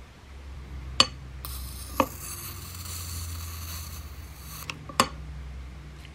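USB electric arc lighter lighting candle wicks: a high-pitched hissing buzz from its arc for about three seconds, with sharp clicks about one, two and five seconds in.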